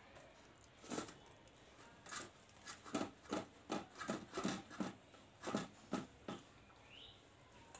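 A series of about a dozen short, soft knocks, coming faster in the middle at about three a second, then stopping.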